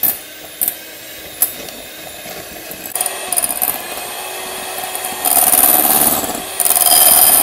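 Electric hand mixer running, its beaters creaming butter in a glass bowl, with a few sharp clicks near the start. It gets louder about five seconds in.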